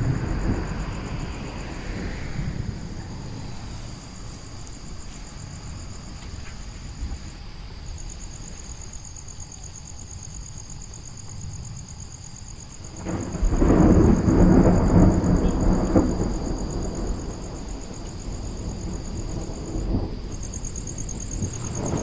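Thunder in a thunderstorm: a low rumble fades over the first few seconds, then a loud clap breaks about 13 seconds in and rolls on for a few seconds before dying away. A faint, steady high trill runs underneath.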